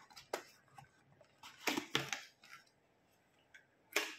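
Cardboard packaging being handled on a wooden table while a spark plug is taken out: a sharp tap, then a rustle and scrape about two seconds in, and another sharp knock near the end.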